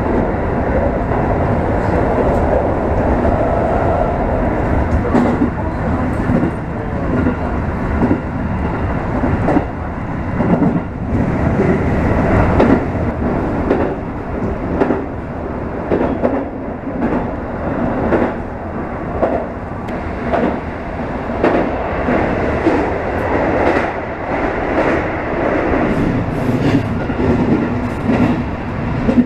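Electric passenger train running at speed, heard from inside at the front of the train: a steady rumble with the wheels knocking over rail joints in an uneven run of clicks, which come thicker from about a third of the way in.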